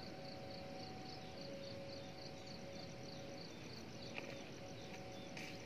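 Faint insects chirping in a steady pulsing rhythm, about three high pulses a second, over two faint steady tones that come and go. A few short chirps sound near the end.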